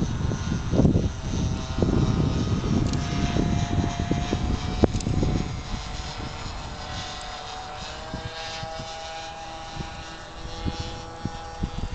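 Twin-engine radio-controlled model de Havilland Mosquito flying overhead, its motors giving a steady high-pitched drone that shifts in pitch as it passes, two tones heard apart in the second half. Wind rumbles on the microphone for about the first five seconds.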